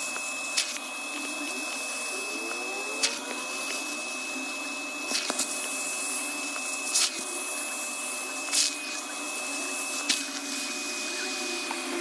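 Household vacuum cleaner fitted with a clear plastic upholstery extractor nozzle, its motor running with a steady high whine as it sucks rinse water out of a wet fabric car seat. About half a dozen short sharp clicks come at irregular moments over the running motor.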